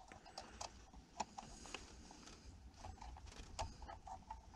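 Faint, irregular clicks and light taps of a small round aftermarket RPM gauge and its bulb socket being handled under a car's dash.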